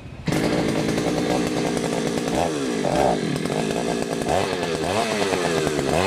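Two-stroke petrol earth auger engine catching on a pull of the recoil starter about a quarter second in, then running, its revs dipping and rising a few times.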